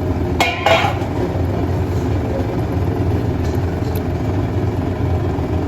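Steady low rumble with two sharp metal clatters of a utensil against the curry pan about half a second in, then a couple of faint ticks.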